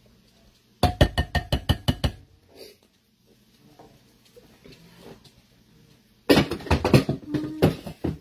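About ten quick, sharp knocks in just over a second: an emptied bean can rapped against the rim of the slow cooker's crock to shake out the last beans. About six seconds in comes a louder run of clattering knocks as things are handled on the kitchen counter.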